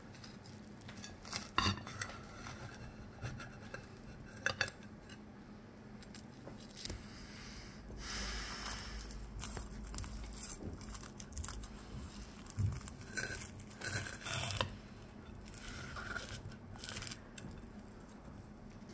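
Knife sawing through the crisp breadcrumb crust of a breaded fried egg and the toast under it: scattered crunches and crackles, with a longer rasping stretch in the middle and the blade scraping on the plate.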